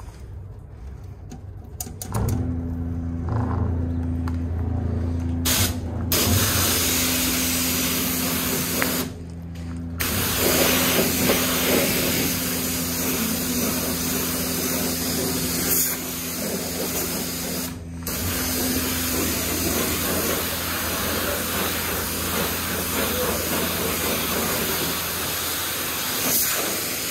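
Self-serve car wash high-pressure wand spraying water onto a car with a loud, steady hiss over a steady pump hum, starting about two seconds in. The spray breaks off briefly a few times.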